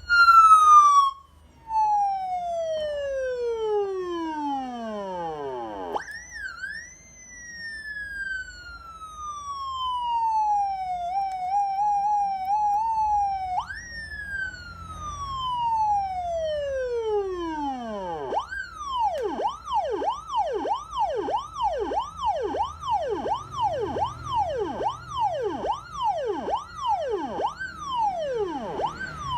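Electronic police-style siren fitted to a Yamaha Exciter motorcycle, cycling through its tones: long falling wails, one with a brief warble, then from about two-thirds of the way in a fast yelp of short falling chirps, roughly one and a half a second.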